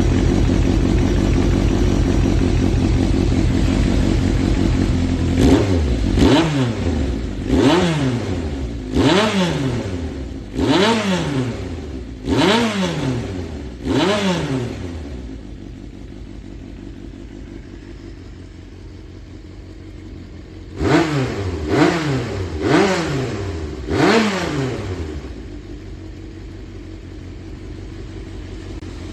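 Honda CBX550F air-cooled inline-four engine assembly idling, then blipped up in revs about six times, each rev rising and falling back. It idles for a few seconds, then gets four more quick blips before settling back to idle. The seller describes it as running without abnormal noise.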